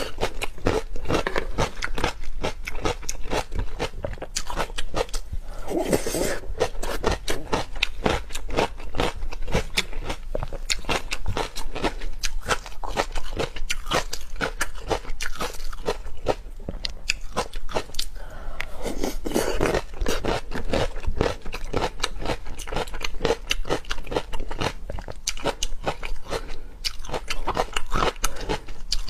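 A person biting and chewing food close to the microphone, with rapid crunching clicks throughout.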